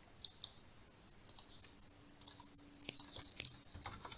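Scattered computer mouse clicks and keyboard key taps, with a cluster of quick taps about three seconds in.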